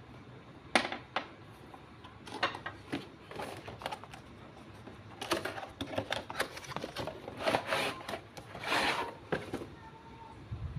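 Packaging of an LED lamp being handled and opened: a sharp click about a second in, then scattered clicks and short rustling and scraping bursts of cardboard and plastic, the longest near the end.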